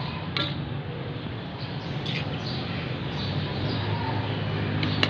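Papaya leaves and chopped ingredients sizzling in a wok while a metal spatula stirs them, with a few short scrapes of the spatula against the pan.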